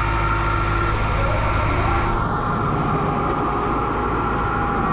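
Kubota M6060 tractor's diesel engine running steadily under way, heard from the operator's seat; its note shifts slightly about two seconds in.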